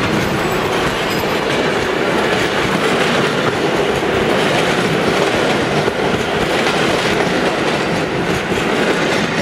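Old ČSD passenger coaches rolling past close by, their wheels running on the rails with a steady, loud noise.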